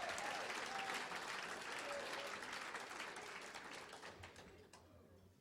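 Banquet audience applauding, the clapping thinning and dying away about five seconds in.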